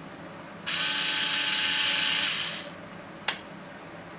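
Meterk USB-rechargeable cordless electric screwdriver running free with no load: its small motor whines steadily for about two seconds, starting abruptly and winding down at the end. A single sharp click follows about three seconds in.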